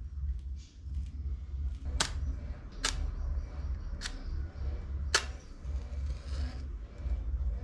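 Four sharp knocks about a second apart over a steady low hum.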